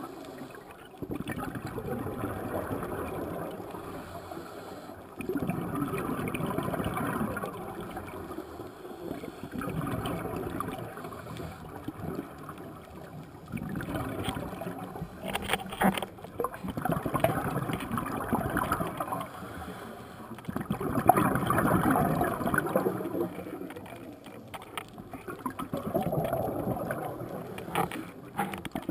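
Scuba diver's breathing heard underwater: exhaled air bubbling out of a regulator in swells every four seconds or so, with a few sharp clicks about halfway.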